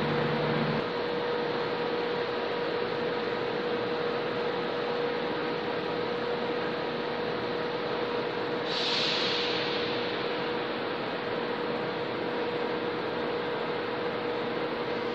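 Steady hum of high-speed trains standing at the station platforms, a constant noise with one held mid-pitched tone in it. A short hiss comes in about nine seconds in and fades away within a second or so.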